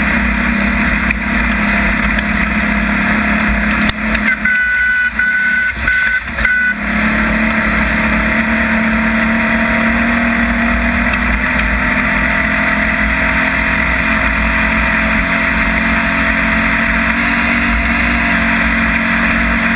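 Off-road race vehicle's engine running hard with heavy drivetrain and terrain noise. Around four seconds in the engine drops back for a couple of seconds, leaving a thin high whine, then comes back on full.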